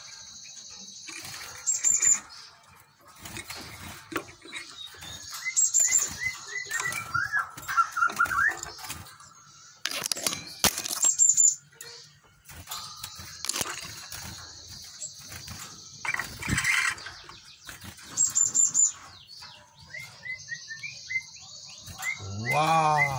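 Cinereous tits (gelatik batu) calling in a cage: repeated high, thin chirps, with spells of lower chirping, over scattered knocks and scrapes from the wooden nest box being handled and opened.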